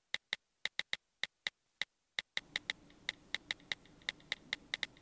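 Smartphone on-screen keyboard key clicks as a message is typed: quick, irregular, crisp ticks, about five a second. A faint low background hum comes in about two and a half seconds in.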